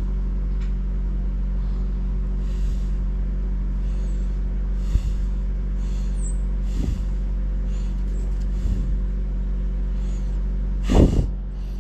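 A steady low mechanical hum, like a motor or engine running, with faint soft rustles about once a second. A short, louder sound comes near the end.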